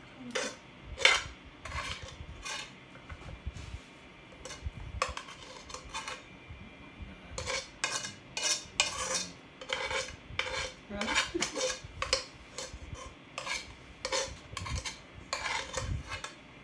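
Cutlery clinking and scraping against dishes, again and again at an uneven pace, as a plate of Indomie fried noodles is stirred and eaten. There is a short lull about six seconds in.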